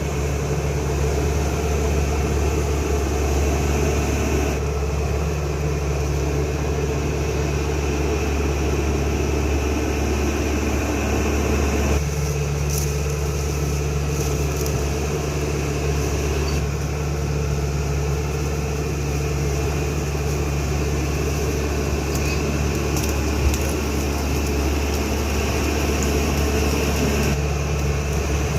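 CAT D5K XL bulldozer's diesel engine running steadily under work, a deep continuous hum whose tone shifts abruptly a few times, with a few faint clicks.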